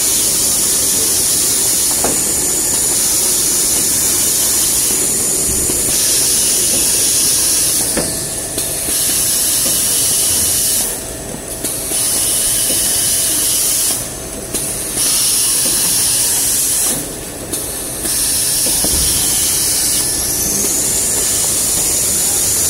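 Jumbo roll toilet paper production line machinery running with a loud, steady high hiss that dips briefly four times, with a couple of light clicks.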